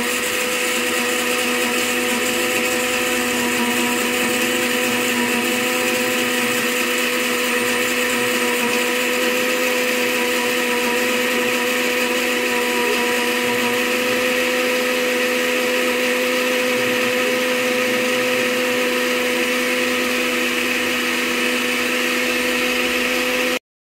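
Electric countertop blender running at one steady speed, blending a thick smoothie of peanuts, banana, egg and milk; a steady motor whine that cuts off suddenly near the end.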